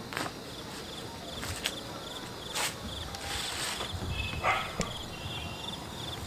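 Insects chirping in a steady pulsing trill, with scattered clicks and knocks.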